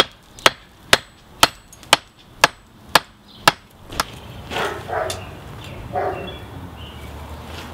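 Hand hammer striking red-hot railroad-spike steel on an anvil in a steady rhythm, about two sharp ringing blows a second, stopping about four seconds in. A couple of duller, noisier knocks follow.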